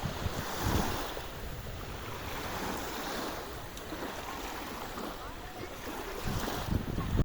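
Sea waves washing on the shore, with wind buffeting the microphone in low rumbling gusts about a second in and again near the end.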